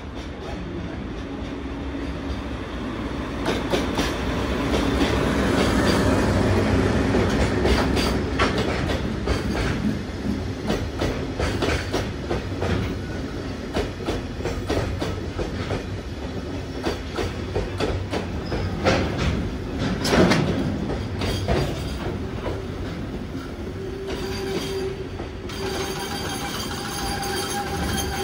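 A DE10 diesel-hydraulic locomotive's engine running as it passes, loudest about six seconds in. Koki container wagons follow, their wheels clicking over the rail joints in irregular clusters. Near the end a steady squeal of wheels or brakes joins in as the freight train arrives at the station.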